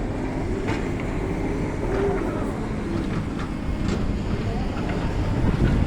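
Steady low mechanical rumble of industrial plant machinery, with a few faint knocks.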